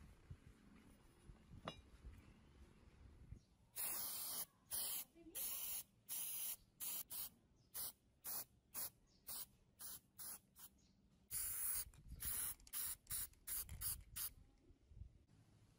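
Aerosol spray-paint can hissing in a run of short bursts starting a few seconds in: a few longer sprays, then quicker squirts about two a second, with a brief pause before another longer spray and more quick squirts.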